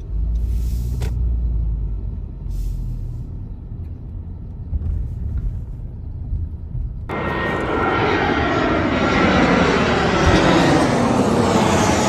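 Low rumble of a car driving slowly for about seven seconds. Then, after a sudden cut, a twin-engine jet airliner passes low overhead, its loud engine noise sliding down in pitch as it goes by.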